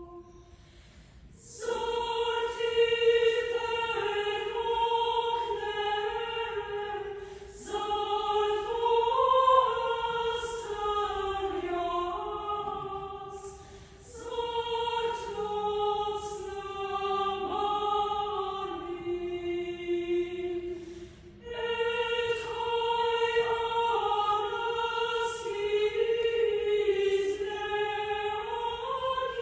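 Women's chamber choir singing an Armenian church hymn (sharakan) unaccompanied, in long held phrases broken by short pauses about every six or seven seconds.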